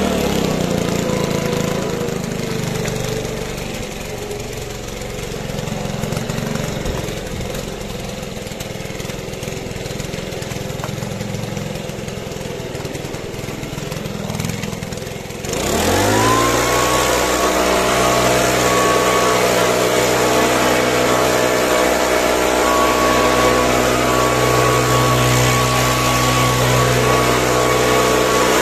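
Small engine of a garden power tool dropping back to a low, quieter run. About halfway through it revs up quickly and holds a steady high-speed whine.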